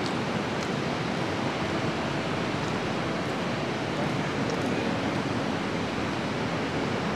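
River water rushing in a steady, unbroken wash of noise.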